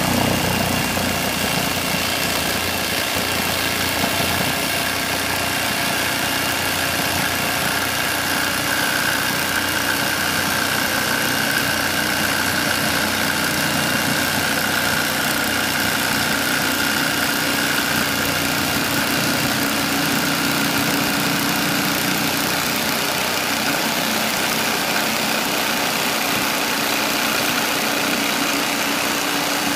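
Electric jigsaw running and cutting clear acrylic sheet along a curved outline: a steady machine buzz with a constant high whine.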